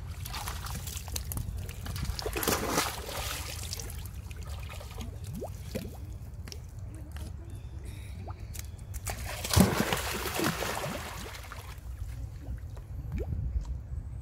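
Pond water splashing and sloshing as macaques swim and clamber out onto the stone steps, dripping. The splashing is louder twice, about two seconds in and again near ten seconds in, over a steady low rumble.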